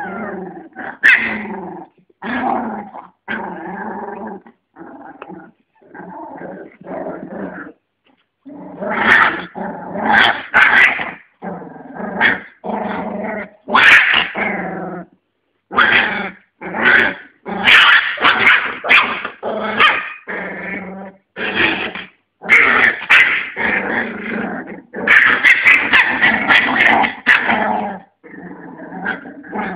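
Young American Staffordshire Terrier puppies, about 25 days old, growling and yipping in play. The growls come short with brief gaps between them, and from about halfway they come thicker and higher-pitched.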